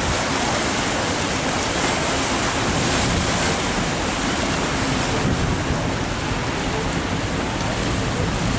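Steady rushing noise from a moving river cruise boat: wind buffeting the microphone mixed with water churning along the hull, with a flickering low rumble.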